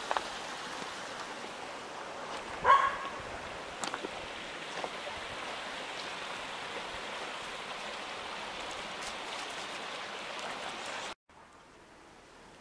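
Shallow river water running steadily over stones, with a dog barking once about three seconds in. Near the end the running water cuts off to a much quieter background.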